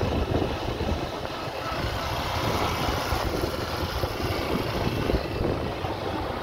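A motorcycle running steadily at low riding speed, with an even rumbling noise of engine and travel.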